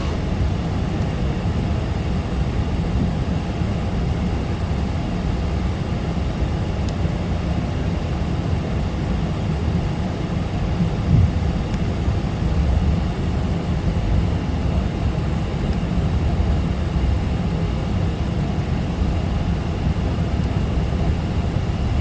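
Steady low rumble inside an airliner cabin after landing: the engines and airframe as the plane taxis.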